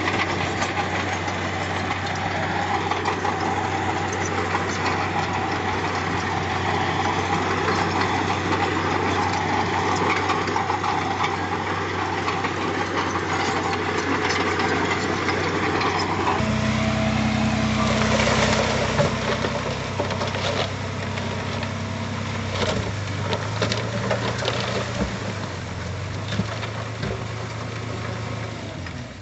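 Diesel engine of heavy earthmoving machinery running steadily. About two-thirds of the way through the engine note changes abruptly to a different, lower one, with scattered knocks and clanks.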